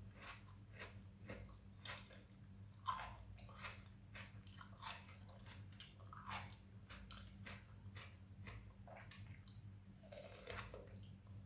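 Close-up wet mouth sounds of eating soft ripe fruit: chewing, sucking and lip smacks as a series of sharp clicks, several a second, with one louder smack about three seconds in. A faint steady low hum runs underneath.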